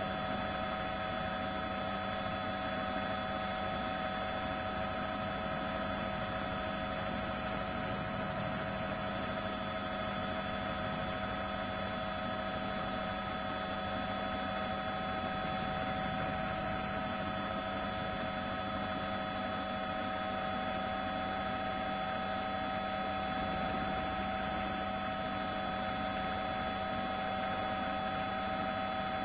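News helicopter noise: a steady drone with several fixed whining tones over a low rumble, unchanging throughout.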